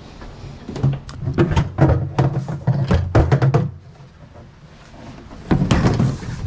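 Plastic dumpster lid thrown open, then a run of knocking and clattering as scrap parts inside are rummaged through, with a second short bout of clatter near the end.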